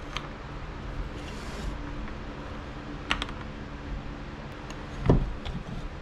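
Light clicks and taps of hands handling the plastic caps and housing of a Stihl 015L chainsaw being taken apart, with one heavier thump about five seconds in.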